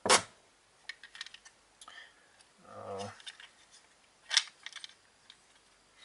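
Plastic walkie-talkie case being handled and taken apart: a sharp click at the start, scattered small clicks and rattles, and another sharp click about four and a half seconds in.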